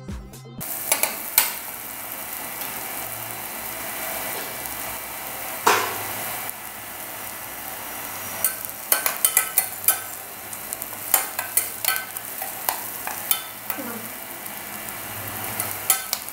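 Small onions frying in hot oil in a stainless-steel pressure cooker with a steady sizzle. A slotted steel ladle scrapes and clinks against the pot as they are stirred, with the clinks bunched mostly in the second half.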